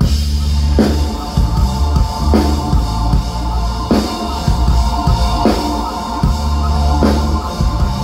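Rock band playing live through a PA, with a full drum kit (bass drum, snare and cymbals) under sustained amplified instruments. The full band comes in right at the start, with a heavy accented hit about every second and a half.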